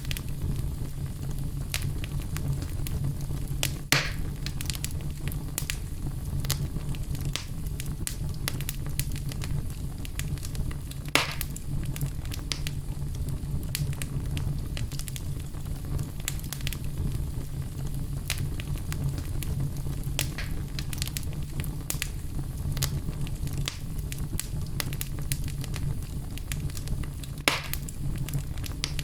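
Wood fire burning in a fireplace: a steady low rumble with constant small crackles, and three louder pops, about four seconds in, about eleven seconds in and near the end.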